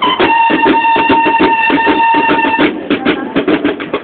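Banda de guerra bugles holding one long note over fast, steady drum beats. The bugles cut off about two-thirds of the way through, leaving the drums playing alone.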